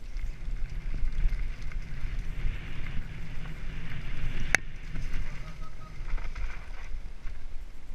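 Mountain bike rolling fast down a dirt singletrack: steady rumble and rattle of the tyres on the trail with wind rushing over the microphone, and one sharp click about halfway through.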